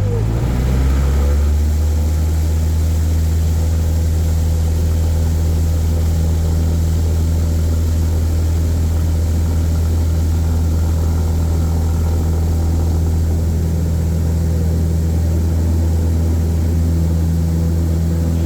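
Propeller aeroplane's engine and propeller running with a steady, loud drone, heard from aboard the aircraft in flight.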